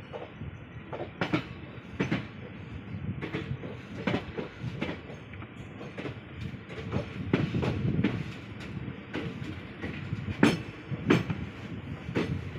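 Passenger train coaches running, heard from on board: a steady wheel rumble with irregular sharp clacks as the wheels cross rail joints and points.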